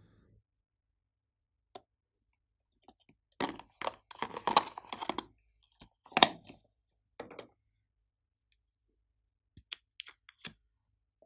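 Glossy slime being pressed and squished by hand, making sticky clicks and small air-pocket pops. There is a cluster of clicks about three to five seconds in, a sharp pop at about six seconds, and a few separate clicks near the end.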